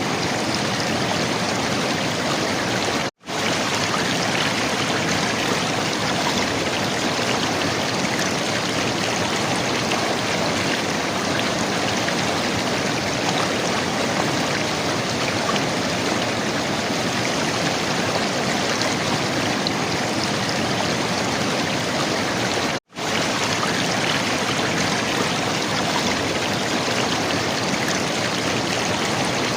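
River water flowing and gurgling in a steady, even rush. The sound drops out twice, for a split second each time.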